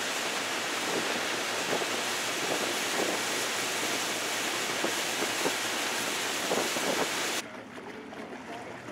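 Wind buffeting the microphone and water rushing past the hull of a boat under way, an even hiss. About seven seconds in it cuts off abruptly to a quieter, steady wash of wind and water.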